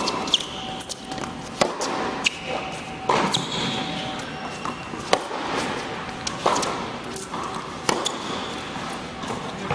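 Tennis rally on an indoor hard court: sharp pops of balls struck by rackets and bouncing on the court, coming at irregular intervals of about a second or so, echoing in the hall.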